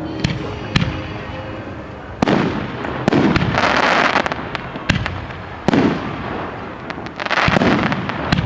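Aerial fireworks display: a string of sharp bursts a second or so apart, with long crackling showers sizzling out after the bursts about three seconds in and again near the end.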